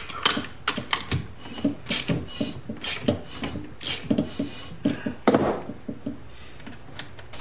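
Honda CB750 transmission turned by hand through its gears in the freshly closed crankcase: a run of metallic clicks and clunks from the gears and shift mechanism, unevenly spaced at about two to three a second, some with a short ring and one louder knock about five seconds in.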